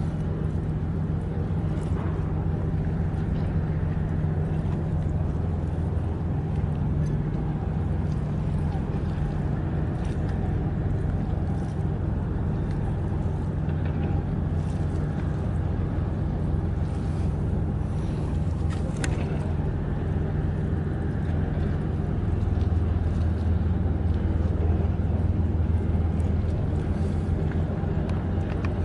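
Steady low engine drone, a deep hum with a second, higher hum above it, growing a little louder about three-quarters of the way through.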